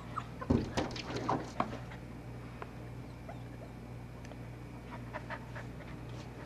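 Puppy whimpering, with a burst of thumps and short whines about half a second to two seconds in, then a few light clicks.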